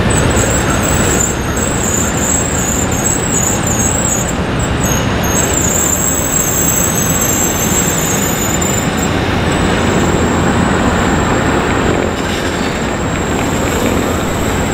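Passenger train cars rolling slowly out of a station, a thin, high wavering squeal from the wheels fading out about two-thirds of the way through, over a steady loud background rumble.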